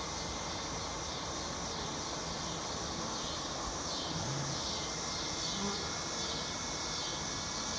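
Steady buzzing of many honey bees around an opened hive, with a continuous high-pitched insect drone behind it.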